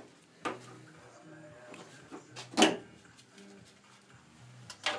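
Plastic trim strip from under the headlight of a Mercedes W163 ML being handled after being unclipped: a few sharp plastic clicks and knocks, the loudest about two and a half seconds in.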